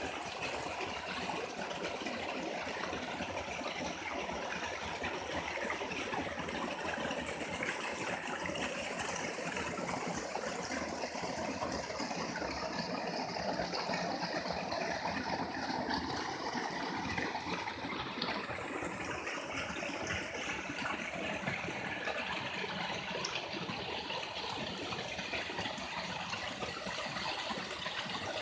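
Waterfall splashing and rushing steadily.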